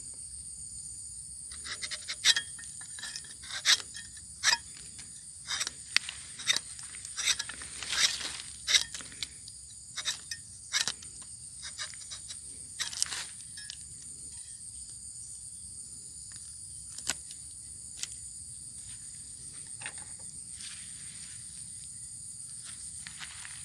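Rubber-tapping knife shaving a thin strip of bark from a rubber tree's tapping cut: a run of sharp scrapes and clicks, which thins out to a few isolated clicks about halfway through.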